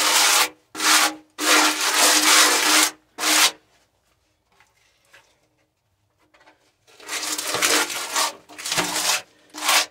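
Wall putty being scraped and spread across a rough plaster wall with a makeshift cardboard spreader: a run of short rasping strokes, a pause of about three seconds in the middle, then the strokes start again.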